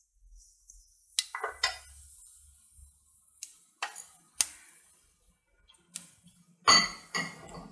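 Mustard seeds sizzling in hot oil in a kadai, with a faint hiss and sharp pops that come singly a few times and then in a quick cluster near the end. The seeds are beginning to splutter, the sign that the oil is hot enough for tempering.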